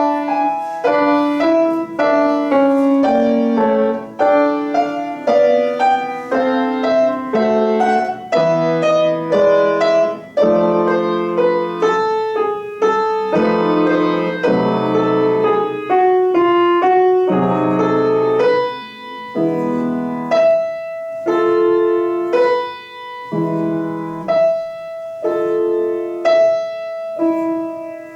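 Solo piano playing a classical piece, a melody over flowing chords. From about two-thirds of the way through, it changes to short detached chords with brief gaps between them.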